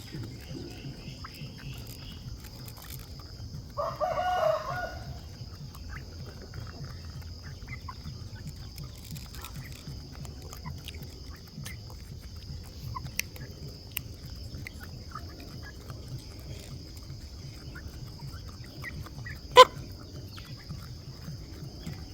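Chicken call, one loud pitched cry lasting about a second about four seconds in, over a steady high hum. A single sharp click near the end.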